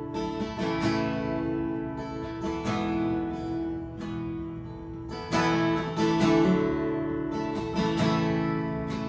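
Acoustic guitar strumming chords, the instrumental introduction of a worship song before any singing.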